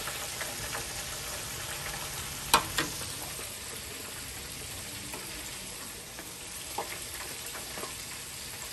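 Battered calamari frying in hot oil in an electric deep fryer set to 350 °F, a steady hiss of bubbling oil. Two sharp clicks come about two and a half seconds in, and a fainter one near the seven-second mark.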